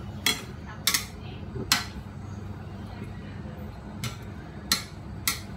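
Metal spatula clinking and scraping against a stainless steel wok while stir-frying celery with shredded chicken: six sharp strikes in two groups of three.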